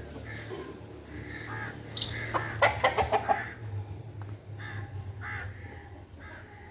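Farmyard bird calls: a quick run of rapid pulsed calls between about two and three and a half seconds in, the loudest part, with shorter calls repeating around it.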